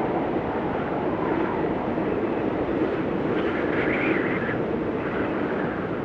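Blizzard wind blowing steadily, with a higher whistling gust about two-thirds of the way through.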